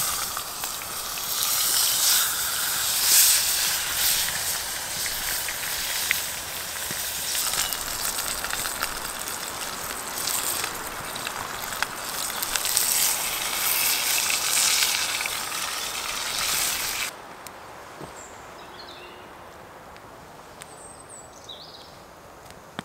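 Large piece of meat sizzling and spitting in a hot cast-iron Dutch oven over an open fire, a loud steady sizzle with fine crackles. It cuts off abruptly about 17 seconds in, leaving a quieter outdoor background with a few faint high chirps.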